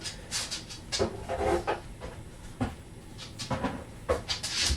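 Household clatter: several sharp knocks and clacks at irregular intervals, like cupboard doors and kitchenware being handled during cleaning.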